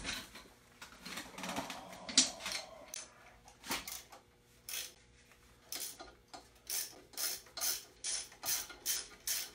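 Hand socket ratchet loosening a pulley bolt on the front accessory drive of a Ford 351 Cleveland V8. A few sharp metal clicks and knocks come first, the loudest a little over two seconds in; then steady ratcheting strokes about twice a second from about six seconds in.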